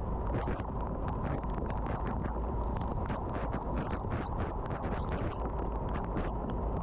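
A car driving in the rain: steady low road and tyre noise, with rapid irregular ticks of raindrops hitting the car.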